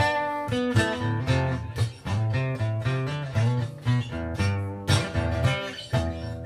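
Solo guitar instrumental break: quick picked and strummed notes over a stepping bass line, with no singing.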